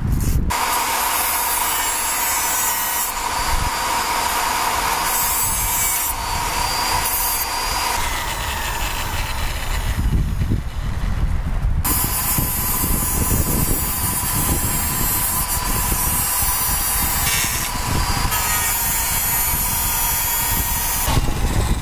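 A handheld power tool cutting notches into steel unistrut channel. It runs in two long stretches with a pause of about two seconds in the middle.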